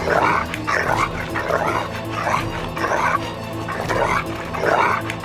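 A dog barking again and again, a bark every half second to a second with a short pause in the middle, over tense background music.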